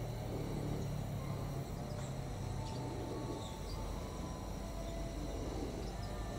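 Steady low rumble of a diesel locomotive still some distance off on its approach, with a few faint high chirps of insects and birds above it.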